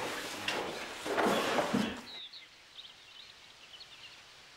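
Large sheets of drawing paper rustling as they are lifted and handled. About two seconds in they stop, leaving a faint background with scattered small bird chirps.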